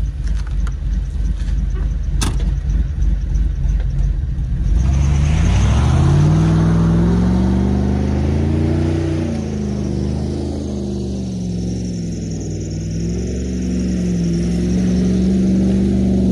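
Cadillac Escalade V8 idling with a low rumble, a single click about two seconds in, then revving hard from about five seconds in. The engine holds high, wavering revs as the spinning wheels throw snow during a donut, with a hiss of spray early in the run.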